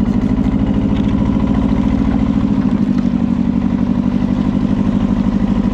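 Fishing boat's engine running steadily with an even throb of about ten pulses a second.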